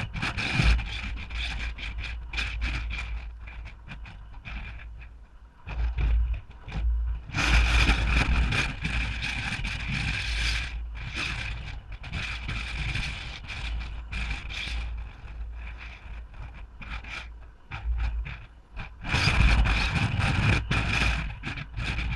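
Wind buffeting the microphone in gusts, with a constant low rumble that swells in surges, three strong ones, the last near the end. Short rustling and scraping handling noises run through it.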